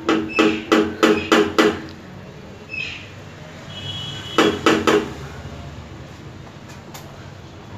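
Knuckles knocking on a painted metal door: about six quick ringing knocks in the first two seconds, then three more metallic clanks about halfway through.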